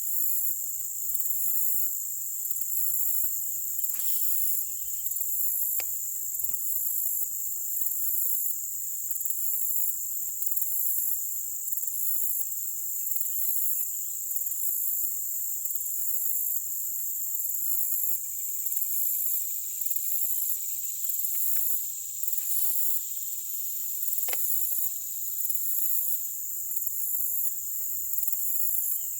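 Insect chorus, crickets shrilling: a steady high trill with a pulsing layer above it, about once a second. A few faint ticks sit on top of it.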